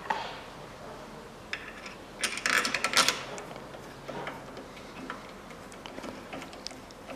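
Small metal clicks and clinks as a new bearing shell is handled and seated in an engine connecting rod's big end, with a quick run of them about two to three seconds in.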